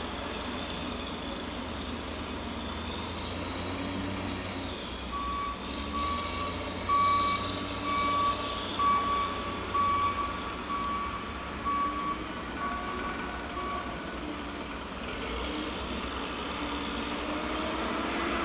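Backup alarm on heavy yard equipment at a mulching operation, beeping about once a second for roughly nine seconds from about five seconds in. Steady low machinery rumble runs under it.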